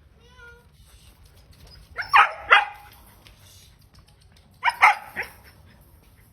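A 4-month-old German Shepherd puppy barking in two short bursts, each of two or three quick barks: one about two seconds in and another near five seconds.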